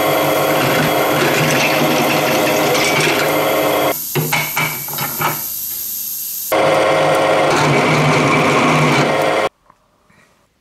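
Drill press running, its bit boring into a metal pedal-assembly part held in a machine vise. A steady motor hum underlies the cutting. About four seconds in it drops away for a moment with a few knocks, then comes back loud and cuts off abruptly near the end.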